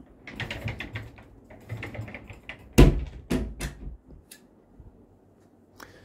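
A run of irregular clicks and knocks, several close together in the first second or so, with the loudest a sharp knock about three seconds in and a few more after it.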